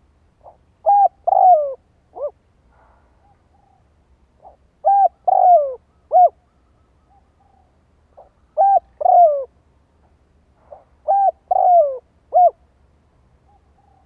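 Spotted dove cooing: four phrases a few seconds apart. Each is a soft note, then two loud coos, the second drawn out and falling, then a short closing coo. It is the call of a caged decoy dove, used to lure wild spotted doves.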